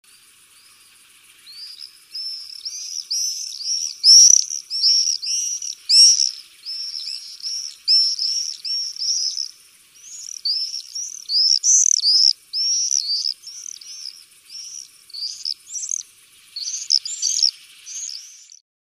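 Common swifts screaming: a long series of shrill, high calls, each curving up and down in pitch. They start faint, grow louder within a few seconds, and cut off abruptly near the end.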